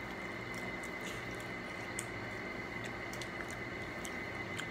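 Faint wet smacking and small clicks of people chewing and biting into sauced chicken wings, over steady background noise with a thin high whine.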